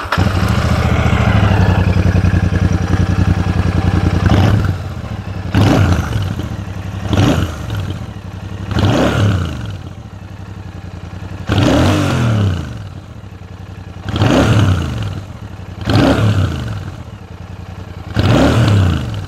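Royal Enfield Shotgun 650's air- and oil-cooled 648 cc parallel-twin engine heard through its twin side-exit mufflers. It starts up and runs at a fast idle for a few seconds, then is revved in short throttle blips about eight times, each rising and falling back to idle. The sound is weighty and fairly big.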